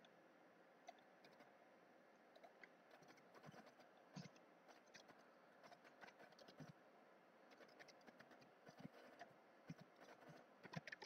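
Faint, irregular clicking of computer keyboard keys during typing.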